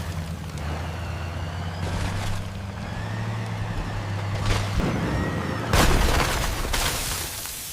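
Heavy-equipment engine running with a steady low drone and thin squeals over it, then a loud crash about six seconds in that fades away.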